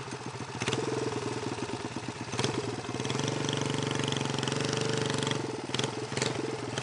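Small single-cylinder Briggs & Stratton engine, a modified 5-horsepower unit, running steadily on a one-wheel motorcycle. It grows a little louder about three seconds in, with a few sharp clicks over the top.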